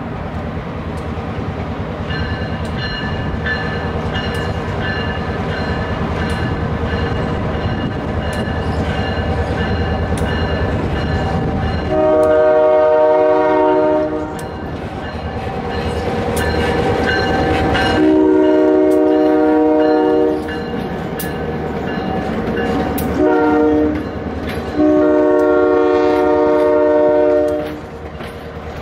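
Nittany & Bald Eagle Railroad diesel locomotive approaching with its engine rumble building. It then sounds its air horn, several notes together, in a long, long, short, long pattern: the standard signal for a grade crossing. Near the end the passenger cars clatter past over the rail joints.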